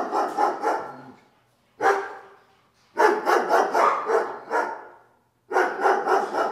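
A dog barking in quick runs of several barks each, with short pauses between the runs.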